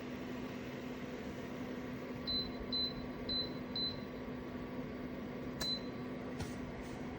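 Taylor Swoden Fiery PTC space heater running with a steady fan hum while its controls beep four times in quick succession about two seconds in, then once more, followed by two clicks.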